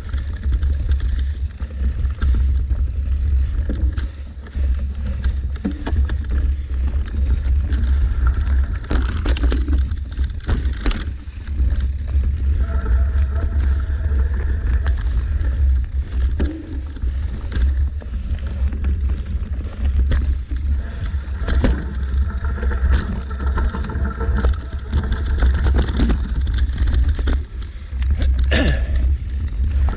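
Mountain bike ridden fast down a dirt forest singletrack, heard from a camera on the bike or rider. There is a steady low rumble of the ride, with frequent sharp rattles and knocks as the bike runs over roots and stones.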